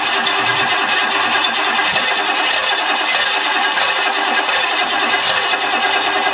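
Cadillac 4.9 L V8 being cranked over by its starter, a steady even churning without the engine catching. The owner suspects a failed fuel pump.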